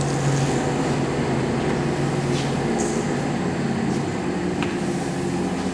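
Metal lathe running steadily while machining a sawmill mandrel's fast collar, with a few light ticks.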